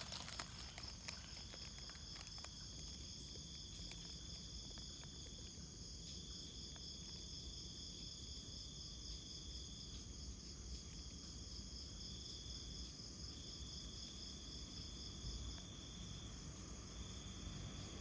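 Night-calling insects trilling steadily: one high, rapidly pulsing trill and a second, slightly lower continuous trill that drops out briefly a few times.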